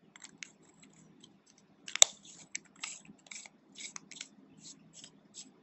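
Stainless steel tube mod being reassembled by hand: a sharp metallic click about two seconds in, then a run of short, faint scraping rasps as the threaded brass bottom switch section is screwed onto the tube.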